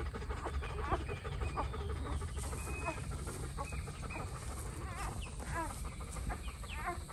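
Newborn livestock guardian dog puppies squeaking, many short high chirps one after another, over a low steady rumble.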